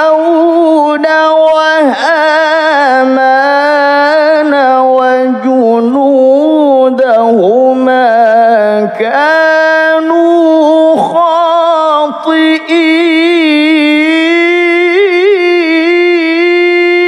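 A male qari reciting the Quran in the melodic tilawah style, one voice winding through long ornamented melismatic phrases with brief breaths. In the last few seconds it settles into a long held note.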